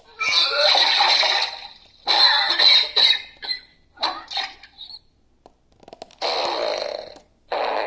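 Small novelty sound-effect toy playing several short recorded sound bites through its tiny speaker, one after another, with brief pauses between them.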